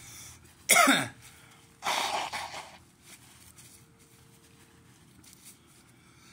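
A man blowing his nose hard into a tissue, one noisy blast lasting about a second, about two seconds in, just after a short vocal huff. His nose is running from the burn of the chili pepper.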